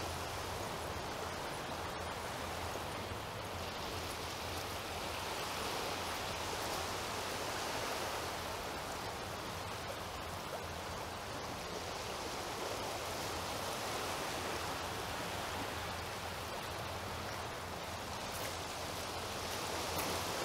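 Steady rushing wash of small waves on a shingle beach, swelling and easing every few seconds.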